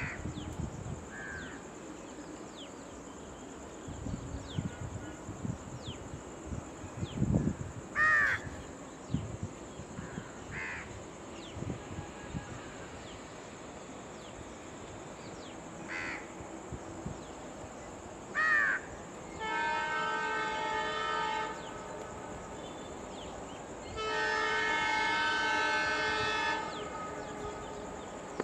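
An Indian Railways locomotive horn sounds two long blasts, each about two seconds, a few seconds apart near the end. Before it, crows caw several times, one call at a time.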